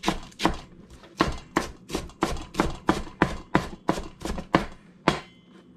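Chef's knife chopping iceberg lettuce on a plastic cutting board: a steady run of sharp knocks, about three strokes a second, stopping shortly before the end.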